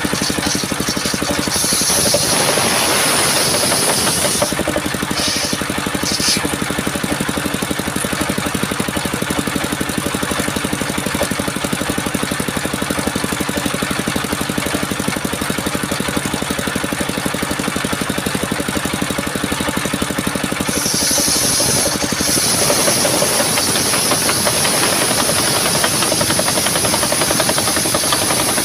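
Engine-driven sawmill running steadily while its blade saws a coconut trunk, a high hiss over the engine note. The cutting sound changes a couple of seconds in and again about twenty-one seconds in.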